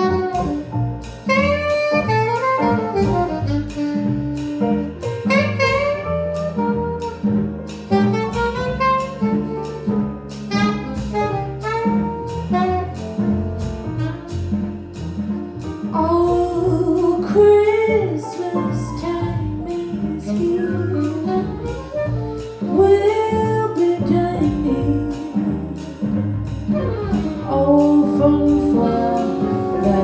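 Live jazz band: alto saxophone playing the lead over piano, upright bass and drums keeping a steady beat. A woman's singing voice joins about halfway through, and trumpet is heard near the end.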